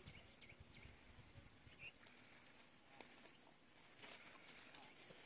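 Near silence: faint outdoor background with a few faint, short high chirps.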